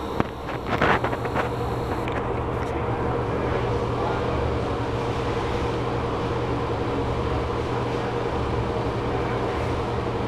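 Broan ceiling exhaust fan running steadily: a constant motor hum under a rush of moving air. A few clicks and knocks sound in the first second and a half.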